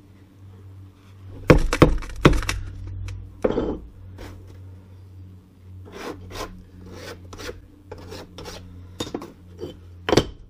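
Metal shell core mould being handled on a workbench: a string of sharp knocks and short scrapes as it is turned over and set down, the loudest near the start and just before the end, over a steady low hum.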